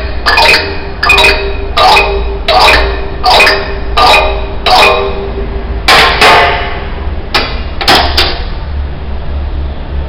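A pitched percussion instrument, the 'farfalla', struck note by note, each note ringing briefly. The notes come about one every 0.7 s, then a quicker cluster about two-thirds of the way through, after which the last note rings away. A steady low rumble runs underneath.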